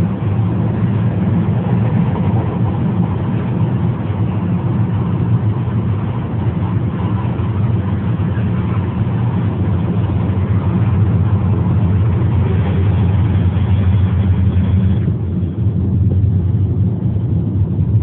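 Steady road and engine rumble inside a moving car's cabin. About fifteen seconds in, the higher hiss drops away suddenly and the low rumble goes on.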